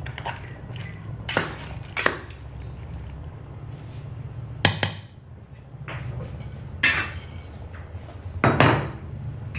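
A metal spatula scrapes and knocks against the side of an aluminium cooking pot while vegetables are stirred, then a few more kitchenware clatters follow. There are about six sharp knocks in all, the loudest about five seconds in and near the end, over a steady low hum.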